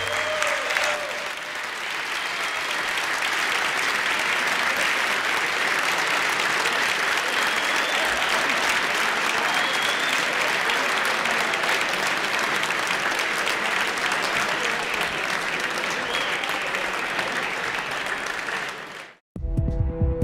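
A large crowd of legislators applauding steadily in a standing ovation. The applause cuts off abruptly about nineteen seconds in, and music with a steady low beat starts a moment later.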